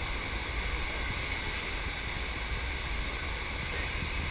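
Steady rush of water pouring over a flowboarding sheet-wave machine, with a low rumble underneath.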